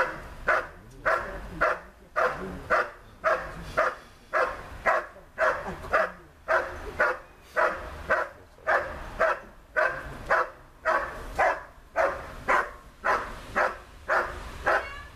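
German Shepherd barking steadily at a protection helper in the blind, about two barks a second without a break: the hold-and-bark (Verbellen) phase of IPO protection work.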